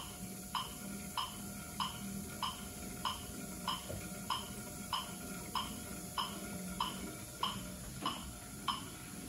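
Metronome ticking steadily at about 100 beats a minute, the pace for pedalling a cycle ergometer at 50 RPM, with a faint steady hum underneath.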